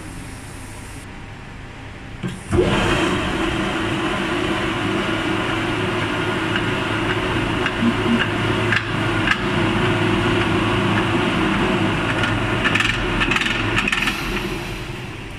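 Motorcycle wheel rim spin-forming machine starting up about two and a half seconds in and running with a loud, steady mechanical hum and a few light clicks, then dying down near the end.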